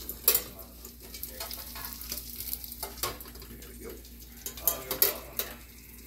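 Egg frying in olive oil in a covered pan, with a steady sizzle. Several sharp metal clicks and knocks at the pan, one just after the start and a cluster near the end.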